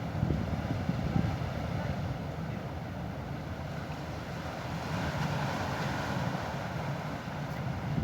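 Wind rumbling on the microphone over a steady wash of sea surf, swelling a little about five seconds in.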